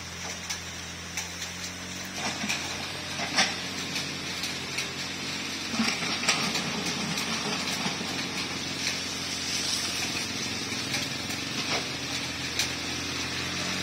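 Mitsubishi mini excavator's small diesel engine running steadily while its bucket digs and scrapes the dirt, with scattered short knocks. A motorbike passes late on.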